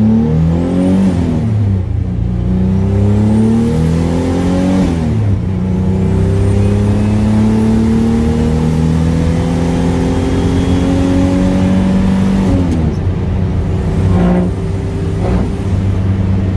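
Car engine heard from inside the cabin, accelerating through the gears. The revs climb, drop at upshifts about two and five seconds in, climb long and steadily, then fall about thirteen seconds in and hold steady. This is a road test of a freshly wired MicroSquirt and GM DIS ignition, checking for an earlier spark or crank-sensor fault.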